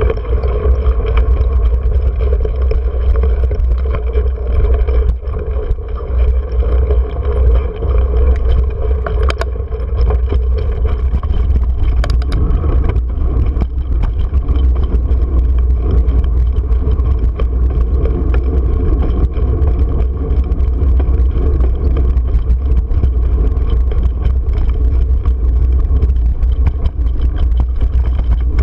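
Steady low wind rumble on a GoPro's microphone while riding a mountain bike over dirt and sand, with tyre noise and a few sharp rattles from the bike.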